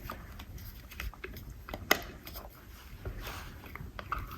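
Scattered light clicks and taps of smart-lock hardware being handled, with one sharper click about two seconds in.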